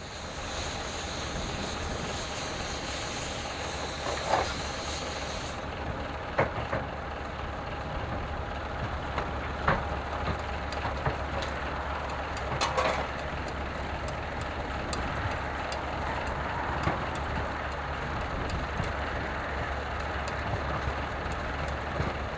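Small diesel shunting locomotive's engine running steadily at low revs, with scattered metallic clanks and knocks. A high hiss over it cuts off suddenly about five seconds in.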